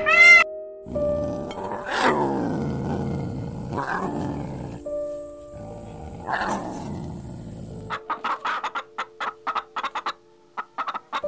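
Background music with sustained notes over a steady high hiss, with two louder rough sounds a couple of seconds in and again past the middle. Near the end comes a fast run of short clucks, about four a second, from a flock of white broiler chickens.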